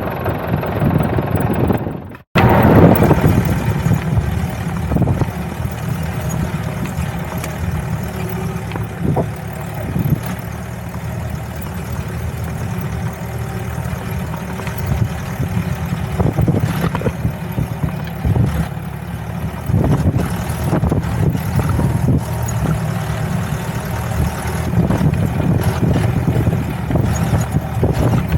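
Off-road safari jeep engine running over a rough forest track, a steady low drone with scattered knocks and rattles from the jolting ride. The sound cuts out briefly about two seconds in.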